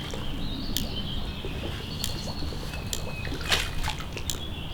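Spring creek water trickling and splashing, with short high bird chirps and a few sharp clicks over it.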